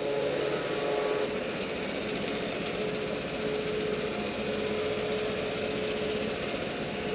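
Small go-kart engines running with a steady buzzing drone that holds one pitch.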